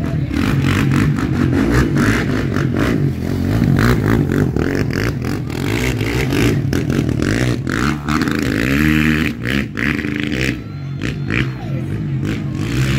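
ATV engine revving up and down as the quad is driven hard around tight turns, with a run of rising revs about eight seconds in. Sharp clicks and knocks are heard throughout.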